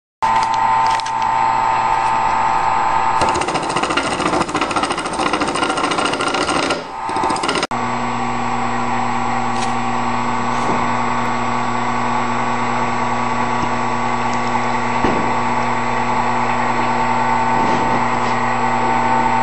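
A wood lathe converted to cut metal, running with a tool cutting the spinning workpiece, a harsh metallic chatter. About eight seconds in the sound changes abruptly to a steadier motor hum with the cutting still going.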